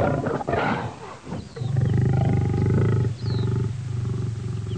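A cat growling, a low steady growl that starts about a second and a half in and holds with a couple of short breaks, after a few knocks and rustles at the start.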